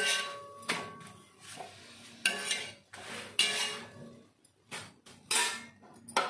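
Steel spatula clinking and scraping on a flat tawa griddle as the cooked parathas are lifted off, then the tawa knocking against the stove as it is lifted, about seven sharp metallic clinks with short ringing.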